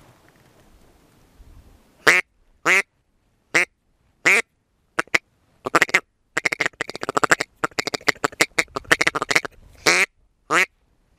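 Ducks in a flock quacking. After about two seconds of quiet, single loud quacks come every half second to a second. Around the middle they break into a fast, dense run of quacking, then go back to single quacks near the end.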